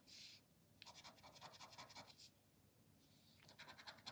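Faint, rapid scratching of the coating off a lottery scratch card, in quick strokes: a brief burst at the start, a longer spell of about a second and a half, then another short spell near the end.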